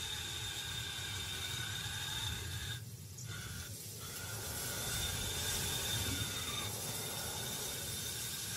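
Small remote-controlled camera buggy driving through long grass: a steady high motor whine over a low rustling rumble. The whine drops out briefly about three seconds in.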